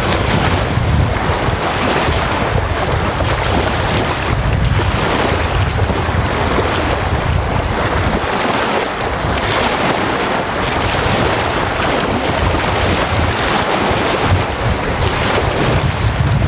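Small wind-driven lake waves washing and breaking on a sandy beach in a steady, surging wash. Wind buffets the microphone as a low rumble that eases for a few seconds around the middle.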